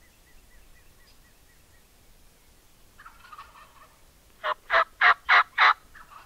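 Wild turkeys calling: a tom gobbles about three seconds in, then five loud, evenly spaced hen-style yelps ring out, and the tom gobbles again near the end, answering.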